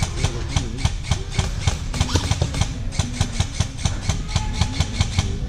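Airsoft guns firing in a firefight: a rapid, uneven string of sharp cracks and clicks over a low rumble.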